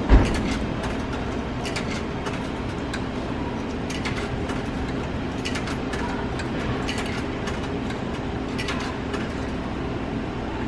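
Coins fed one by one into a vending machine's coin slot, each dropping in with a short click, about a dozen spread irregularly, over a steady low hum. A dull thump right at the start is the loudest sound.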